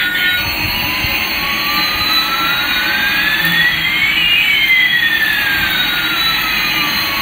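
Electronic jet-engine sound effect from a battery-powered toy Airbus A380 plane: a steady rushing hiss with one whine gliding up and another gliding down, crossing about four seconds in.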